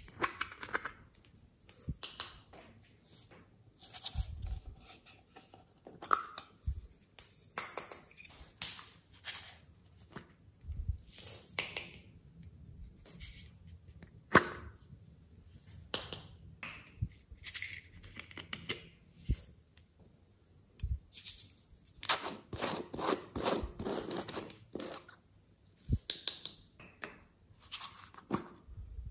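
Small plastic toy containers handled and opened by hand: irregular plastic clicks, snaps and crinkling, with a longer run of crackling about three-quarters of the way through.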